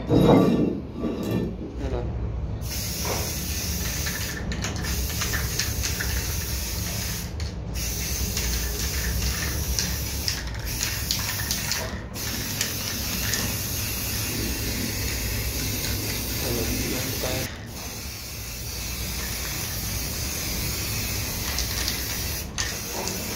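Aerosol spray-paint can hissing in long bursts with a few short breaks, starting a couple of seconds in, as green paint is sprayed onto a piston water pump's housing.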